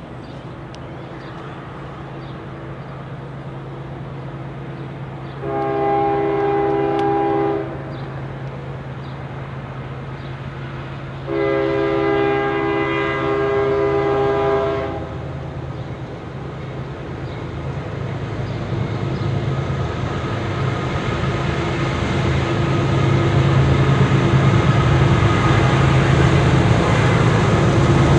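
CSX freight train approaching, led by a GE ES40DC diesel-electric locomotive: the engine drone grows steadily louder, and its multi-chime horn sounds twice, a blast of about two seconds some five seconds in and a longer one of about three and a half seconds some eleven seconds in. From about halfway through, the rumble of the locomotives and cars builds as the train nears.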